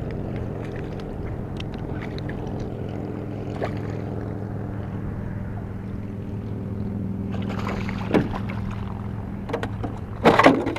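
Boat motor running steadily with an even, low hum. A few knocks and clatters come near the end.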